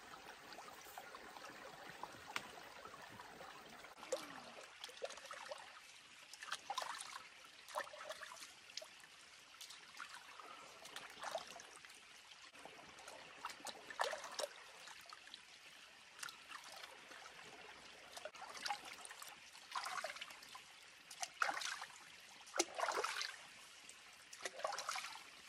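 Shallow creek flowing over rocks, with repeated splashes of hands scooping water from it, the loudest clusters in the second half.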